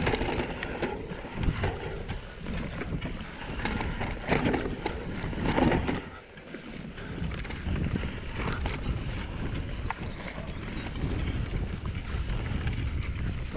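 Enduro mountain bike descending a dirt trail at speed: tyres rolling over the loose ground and frequent knocks and rattles from the bike over bumps, with wind buffeting the microphone. It goes briefly quieter about halfway through.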